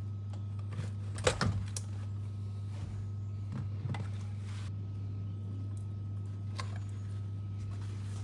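Clicks and knocks of a deployed driver's airbag module being unclipped and pulled out of a Porsche Cayman S steering wheel, the loudest cluster a little over a second in, over a steady low hum.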